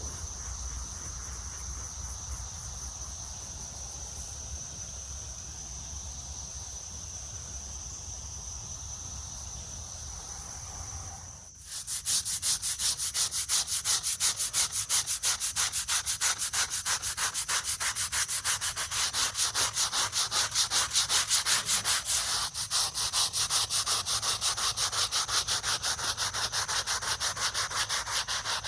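Crickets trilling steadily, then about eleven seconds in a brush starts scrubbing a mildew-blackened gravestone in fast, even back-and-forth strokes, which quickly become the loudest sound.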